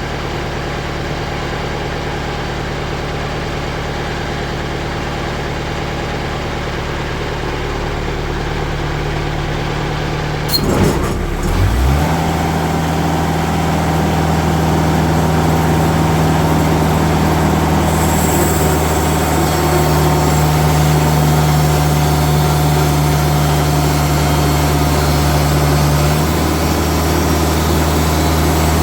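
Timberking bandsaw sawmill's engine running steadily, then, after a brief knock about ten seconds in, revving up to a higher speed and holding it steadily for the final cut.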